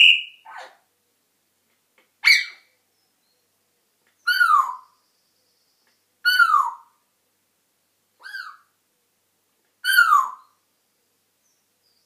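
A pet parrot calling the same short, falling call over and over, six times, about every two seconds.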